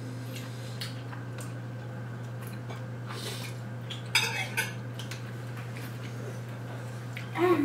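Metal forks scraping and clinking against ceramic plates during a meal, with a sharper clatter about four seconds in, over a steady low hum.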